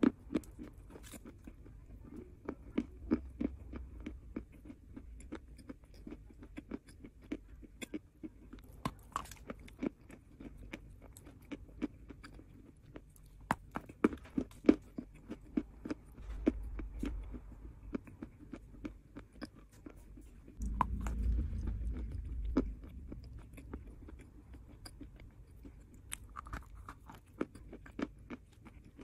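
Chalk being chewed close to the microphone: crisp crunches and clicks in quick succession, with a few louder bites past the middle. A muffled low rumble rises for about two seconds a little later.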